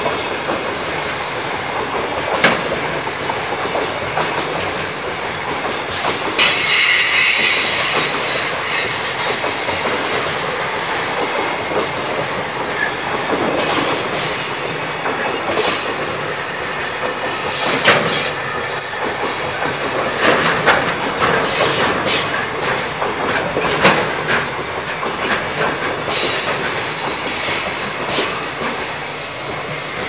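A long freight train of container flatcars rolls past at close range. Its wheels clatter over the rail joints with scattered sharp knocks, and high wheel squeal comes through about six seconds in and again near the end.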